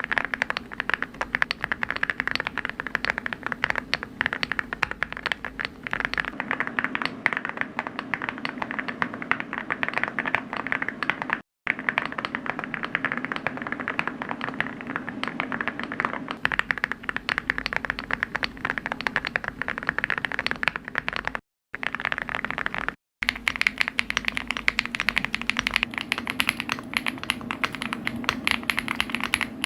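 Fast, continuous typing on a mechanical keyboard, a dense stream of key clicks and clacks. The typing cuts out abruptly to silence three times for a split second, where separate recordings are spliced together.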